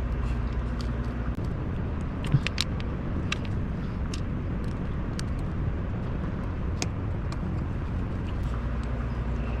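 Steady low background hum with scattered light clicks and taps, the loudest about two seconds in, from small plastic wheel and tire parts being handled and pressed together.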